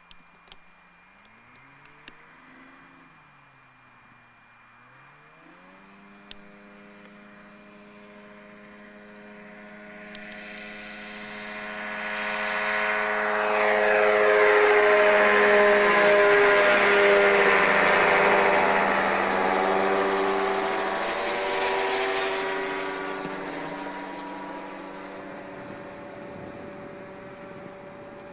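Pegasus Cyclone AX2000 microlight's two-stroke Rotax 503 engine and propeller on take-off. The engine note wavers at first, then rises to a steady full-power pitch about five seconds in. It swells loud as the aircraft passes close by partway through, then fades as it climbs away.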